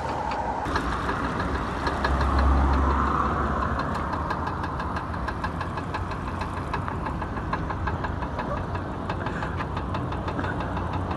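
Hyundai i40 engine idling with a regular knock coming from low down in the engine, briefly louder about two seconds in.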